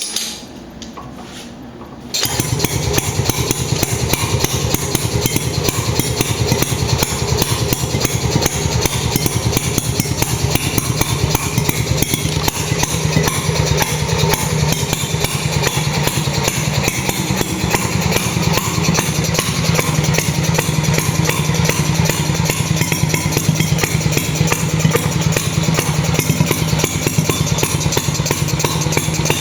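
Stuart Turner P5M single-cylinder two-stroke petrol marine engine starting abruptly about two seconds in, then running steadily with a fast, even firing beat.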